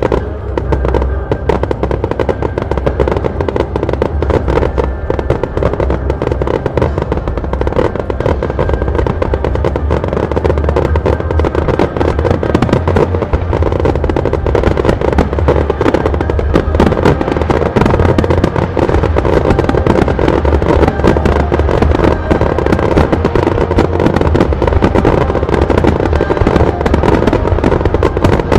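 Starmine fireworks barrage: a dense, continuous run of shell bursts and crackle, growing a little louder toward the end, over show music.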